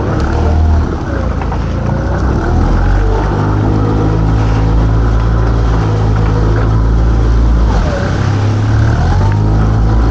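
Small fishing boat's engine running under way, its pitch shifting with the throttle, over wind and water rushing past the hull.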